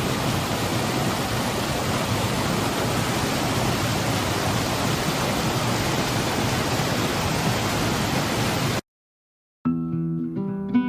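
Rushing water of a mountain stream, a steady even roar. It cuts off abruptly near the end, and after a brief silence plucked-string music starts.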